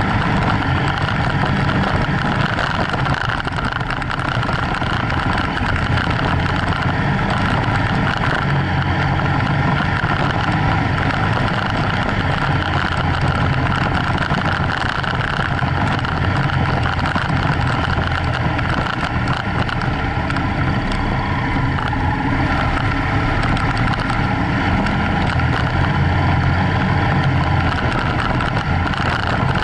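BMW F800GS parallel-twin engine running steadily as the motorcycle rides over a gravel track, with a steady rush of wind and tyre noise over it.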